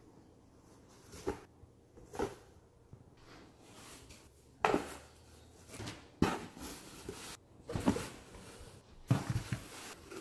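Folded T-shirts being handled in a cardboard shipping box: fabric rustling and cardboard scraping and knocking. About six sharp handling noises at gaps of a second or two, louder from about halfway.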